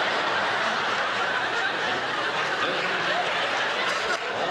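Live theatre audience laughing, a steady wash of crowd laughter that holds at one level throughout.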